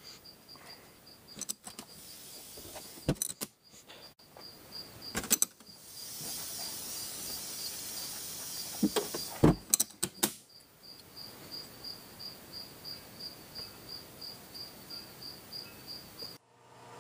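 Clicks and knocks of a small aluminium carburetor being handled, then a glass-bead blast cabinet hissing for about five seconds, with a few loud knocks near its end. A steady high chirping repeats about three times a second underneath.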